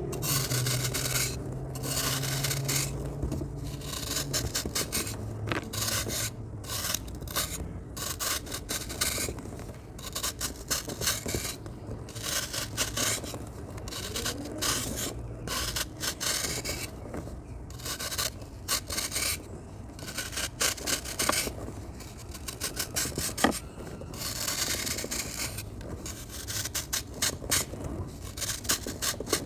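Crunchy dry sand crumbling and falling, a gritty rasping hiss that comes and goes in uneven bursts with short pauses between.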